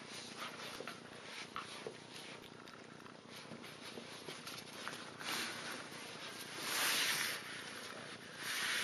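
Husky puppies growling low and rough as they tug on a plush toy, with small scuffs and clicks of the play. There are two louder stretches, about five and seven seconds in.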